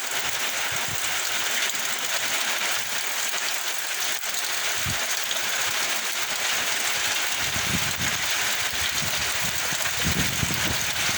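Heavy tropical rain pouring steadily in a dense hiss, with strong wind gusts rumbling low on the microphone, mostly in the last few seconds.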